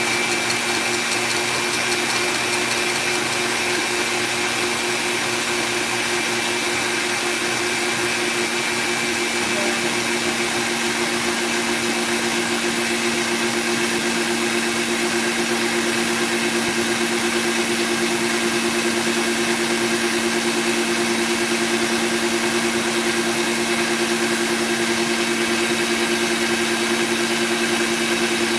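KitchenAid Artisan stand mixer motor running steadily on high speed, its whisk whipping egg whites into Italian meringue while hot sugar syrup is poured in. A constant motor hum with a steady whine.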